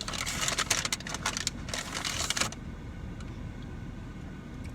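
Tortilla chips crunching close to the microphone as they are bitten and chewed: a dense run of crisp cracks that stops about two and a half seconds in.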